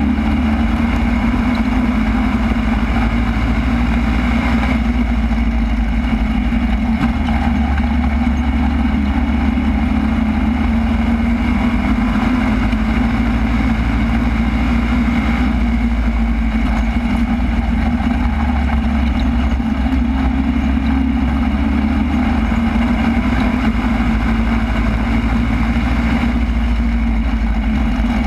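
Super stock race car's engine heard from inside the car, running hard and steady at racing speed, its note shifting briefly about every eleven seconds.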